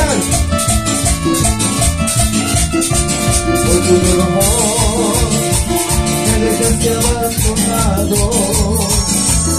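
Live Latin dance band playing an instrumental passage: a wavering keyboard lead over electric bass, a steady beat and a constant shaker rattle.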